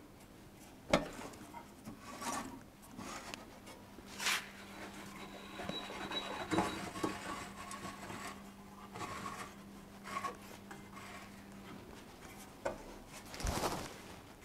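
Sheet metal panel being slid, scraped and knocked against the steel of a bench-mounted sheet metal brake while it is set in and clamped. There is a sharp metal knock about a second in, then scattered scrapes and taps, and a longer scrape near the end.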